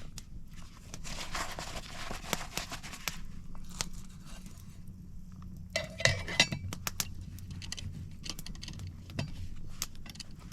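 Metal camp cookware and utensils clinking and scraping during handling, with some rustling. A quick run of loud clinks comes about six seconds in.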